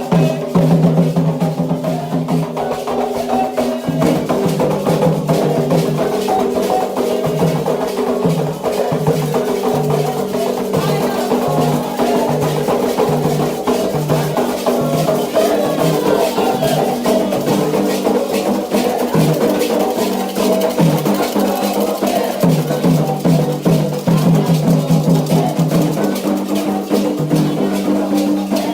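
Candomblé ritual music: drums and sharp wooden or metal percussion beating a steady, repeating rhythm, with voices singing over it.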